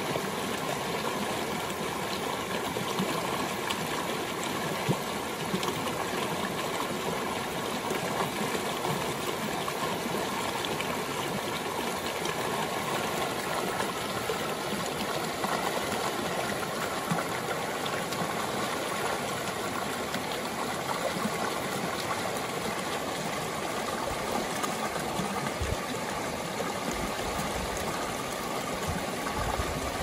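Fast, shallow mountain stream rushing and splashing over rocks, a steady, even wash of water noise.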